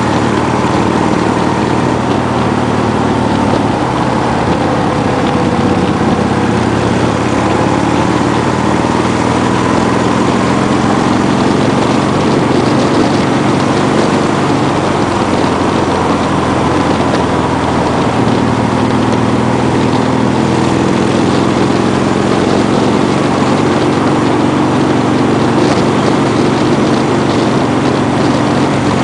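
Motor vehicle engine running steadily at cruising speed along a winding road, its note holding fairly level, under continuous wind and road noise.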